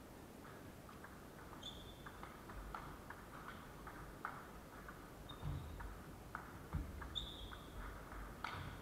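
Table tennis ball clicking off rubber bats and the table in a fast rally, about two hits a second, with the loudest hit near the end. A few short high squeaks, likely sports shoes on the wooden floor, and a couple of low thuds come in between.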